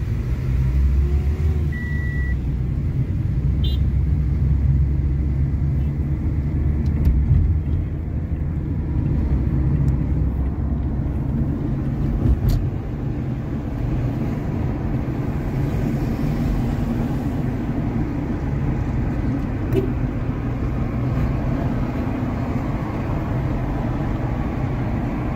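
Car driving in traffic, heard from inside the cabin: a steady low engine and road rumble. A short high beep sounds about two seconds in.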